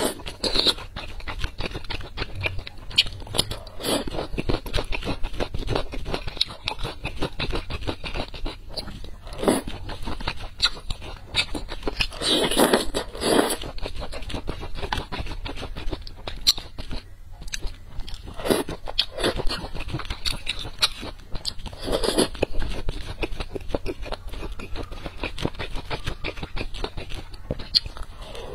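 Close-up eating sounds of spicy hot pot: chewing and crunching of firm slices such as lotus root and potato, with bites and wet mouth clicks, broken by a few louder bursts of mouth noise.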